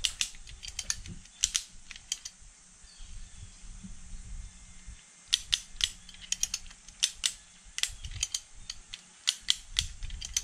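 Ratchet and pawl of a Kiwi in-line fence strainer clicking as its handle is cranked, winding up high-tensile fence wire to tension it. Sharp clicks come several a second in two runs, with a pause of a couple of seconds between them.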